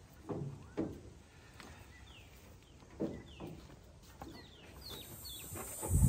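Bird chirping in short, falling calls, repeated several times, over a few dull knocks; a louder low thump comes near the end as a steady high insect buzz starts up.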